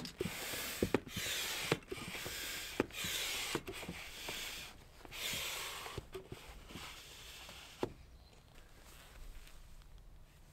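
Hand pump inflating an inflatable kayak: about eight pump strokes roughly a second apart, each a rush of air with a knock from the pump, stopping about eight seconds in. The boat is being re-inflated to test a cured puncture patch.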